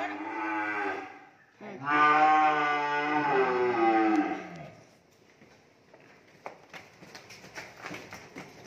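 Cattle mooing: two long moos, the first ending about a second in and the second lasting about three seconds and dropping in pitch as it ends. Then a few soft knocks and rustles.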